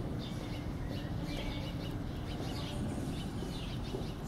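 Small birds chirping in short repeated calls over a steady low background rumble.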